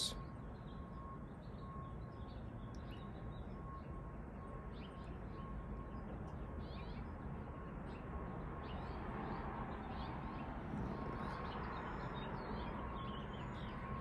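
Steady low background noise with faint, scattered bird chirps.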